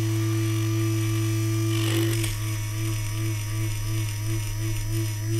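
Small electric drive motor of a commutator lathe running steadily, spinning a brushed RC motor's armature with a steady hum and whine while the cutting bit takes a very thin pass across the commutator. There is a brief rasp about two seconds in, after which the tone wavers rhythmically.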